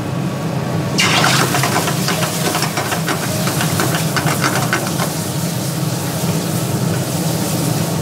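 Liquid poured into a hot iron pan of roasting masala about a second in, setting off a loud steam hiss and sizzle that settles into steady crackling as a steel ladle stirs it. A steady low hum runs underneath.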